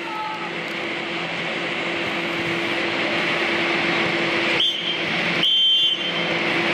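Steady rush and hum of the blower fans that keep an air-supported sports dome inflated, with two brief high-pitched tones about two-thirds of the way through.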